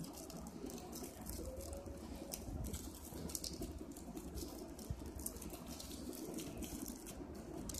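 Hands fiddling with a small black plastic toy piece: light, scattered plastic clicks and rustles.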